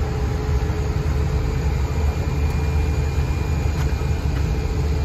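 Cessna 208 Caravan's PT6A turboprop engine and propeller running steadily, heard from inside the passenger cabin as a deep drone with a steady hum on top.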